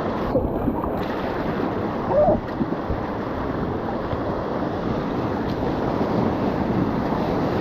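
Rushing river whitewater around a raft, a steady, unbroken rush of water.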